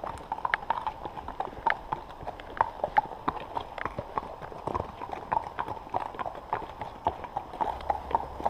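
Horses' hooves clip-clopping as they walk on a gravel track: a steady, irregular run of sharp clicks, several a second.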